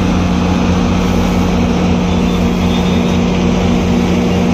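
GO Transit bilevel passenger coaches rolling past on the rails: a loud, steady rumble of wheels on track with a steady low hum underneath.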